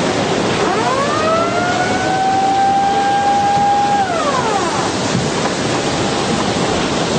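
Outdoor warning siren wailing once. Its pitch rises over about a second, holds steady for about three seconds, then falls away around five seconds in, over a steady rushing noise.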